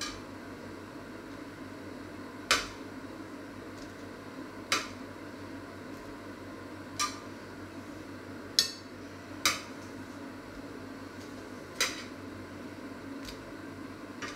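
Metal kitchen tongs clacking against a metal baking tray and a china plate as croquettes are picked up and set down: six sharp clicks, one every second or two, over a steady low hum.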